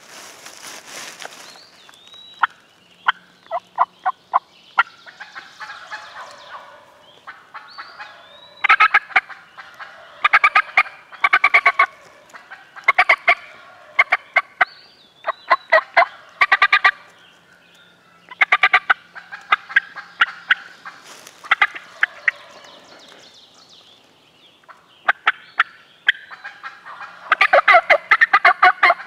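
Wild turkey gobbling and calling in several bursts of quick, sharp notes, loudest near the end.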